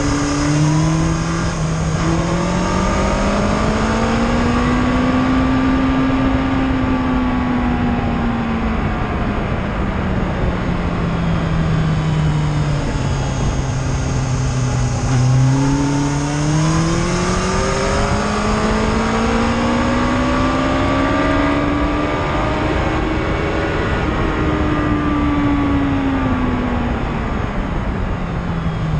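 Sports motorcycle engine at track speed, heard from a camera mounted on the bike: the engine note climbs and falls slowly twice with the throttle through the corners and straights, with a steady rush of wind over the microphone.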